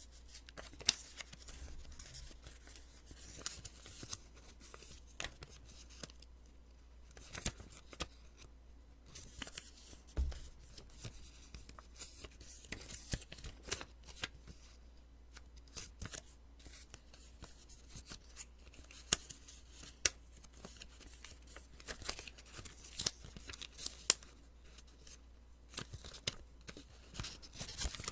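Sticky notes (Post-its) being peeled off and handled close to the microphone: irregular papery crackles and sticky ticks, with a low steady hum underneath.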